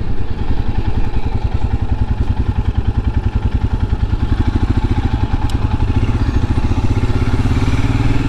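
Royal Enfield Himalayan's 411 cc single-cylinder engine running at low revs as the motorcycle rolls slowly, an even, rapid pulsing.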